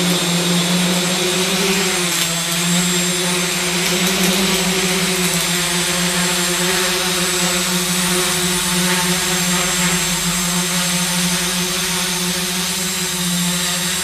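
Large home-built quadcopter's four 3548 brushless motors and propellers running as it lifts off and hovers: a steady buzzing hum over a broad rush of air. The pitch shifts slightly about two seconds in, then holds steady.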